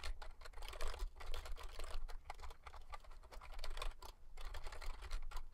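Typing on a computer keyboard: a quick, uneven run of key clicks, with a brief pause about four seconds in.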